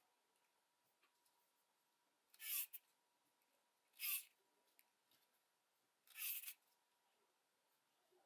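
Three short, hissy scraping strokes about two seconds apart, each about half a second long and ending with a quick falling sweep: a hand tool scraping on small plastic and metal parts while a computer mouse is worked on. A faint steady tone hums underneath.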